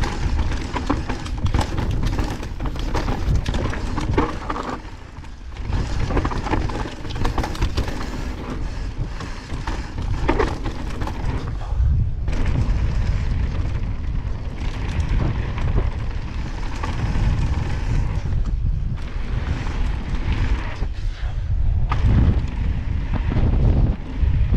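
Evil Wreckoning full-suspension mountain bike riding fast down a dirt and gravel trail: tyres rolling over loose ground, with wind rumbling on the helmet camera's microphone and frequent knocks and rattles from the bike over bumps.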